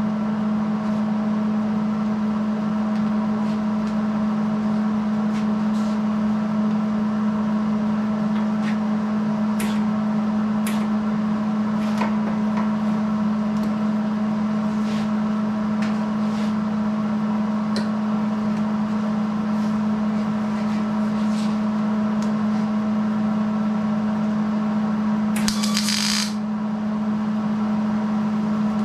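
Steady electrical hum and buzz in a welding shop, with scattered light clicks and taps of metal being handled and one short hiss, under a second long, near the end.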